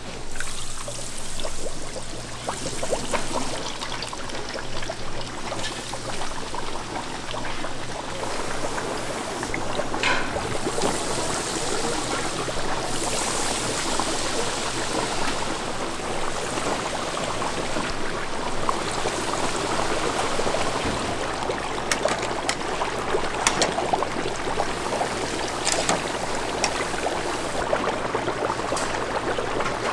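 Chicken deep-frying in hot oil: a steady sizzle with fine crackling throughout.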